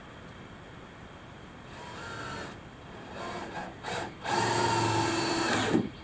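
Cordless drill driving screws: a few short bursts of the motor, then a longer steady run of about a second and a half that stops near the end.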